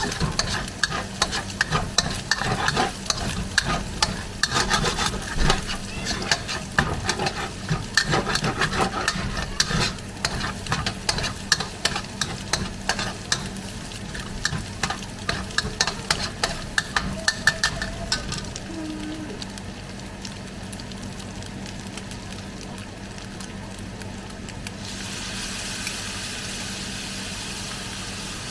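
A spatula stirring and scraping in a pan of garlic frying in oil, with rapid irregular clicks over a sizzle. The stirring stops about two-thirds of the way through, leaving a steady sizzle that gets brighter near the end.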